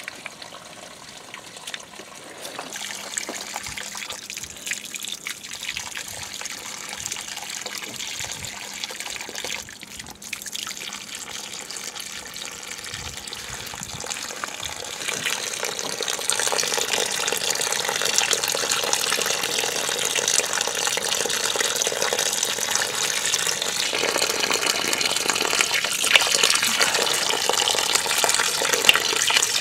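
Water gushing steadily out of an open, pressurised water line into a muddy puddle; the supply will not shut off, so the line runs while a new valve is fitted. It gets louder about halfway through, with a few light knocks of tool handling.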